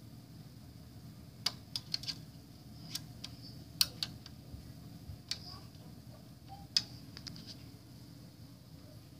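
Plastic LEGO pieces of a Millennium Falcon model clicking and tapping as they are handled: a scatter of short sharp clicks, the loudest about four seconds in and near seven seconds, over a low steady hum.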